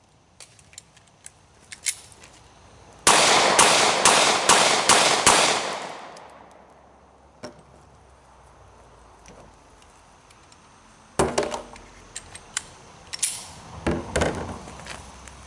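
A fast string of six 9mm pistol shots from a Glock 43, about half a second apart, starting about three seconds in and ringing off afterwards. A few small clicks come before the shots, and near the end there are knocks and clatter as things are set down on a plastic barrel.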